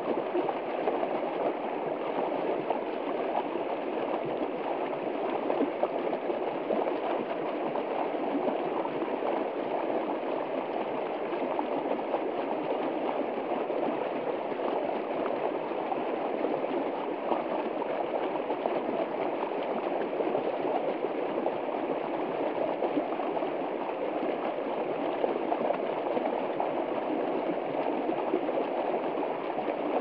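River rapids rushing and churning over rocks, a steady, even roar of water.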